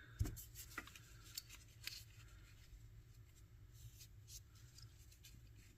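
Faint handling of the radio control head's small parts: a soft knock about a quarter second in, then a few light clicks and ticks.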